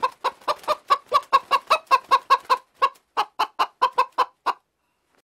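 Chicken clucking in a rapid run of short clucks, about five a second, with a brief pause about three seconds in. The clucking stops about four and a half seconds in.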